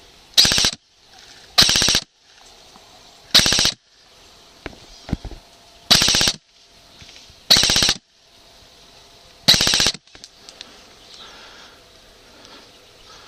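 Airsoft rifle firing six short full-auto bursts of rapid shots, each about half a second long and spaced a second and a half to two and a half seconds apart.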